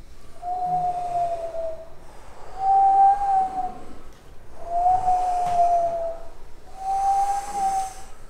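Overtone (throat) singing: a high, whistle-like tone held over a faint low drone, in four phrases of about a second to a second and a half each, with short breaks between them. The high tone stays fairly level, dipping slightly at the end of some phrases.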